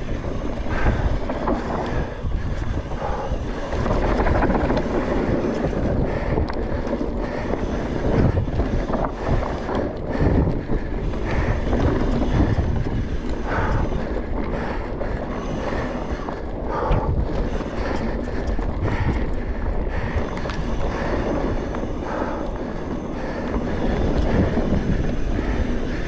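Mountain bike riding on a dirt singletrack: wind buffeting the camera microphone over the rumble of tyres on the trail, with frequent clicks and rattles from the bike over bumps.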